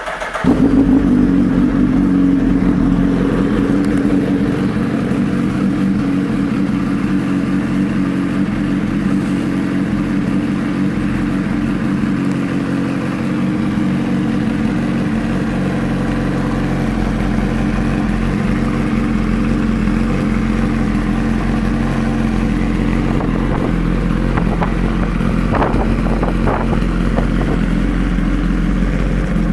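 2011 Suzuki Hayabusa's 1340 cc inline-four, breathing through an aftermarket Brock's exhaust, starts up and settles into a steady idle.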